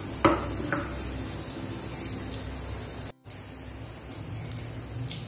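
Mustard and cumin seeds sizzling in hot oil in a clay pot, a steady hiss with a few scattered pops as the mustard seeds begin to splutter. The sound cuts out for a moment about three seconds in.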